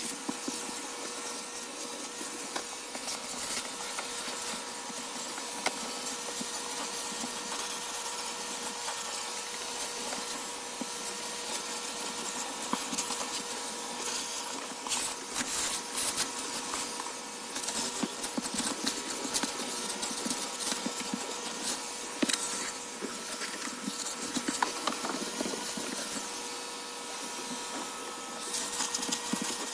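A small electric motor running steadily, with scattered clicks and knocks.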